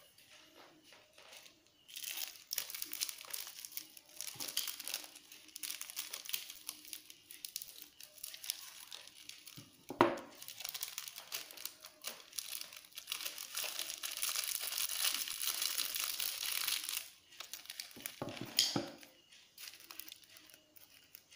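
Foil seasoning sachets of a cup of instant noodles being crinkled and squeezed by hand, a dense crackling that runs for most of the stretch, with one sharp tap about halfway through.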